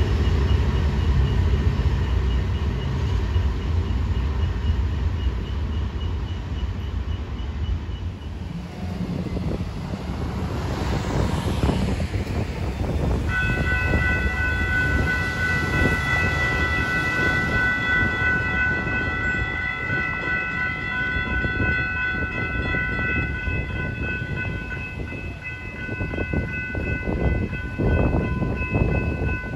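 Freight train cars rumbling and clattering past on the rails, with a crossing bell dinging faintly. About halfway through, an approaching Brightline passenger train's horn starts sounding a long, steady chord and keeps blowing.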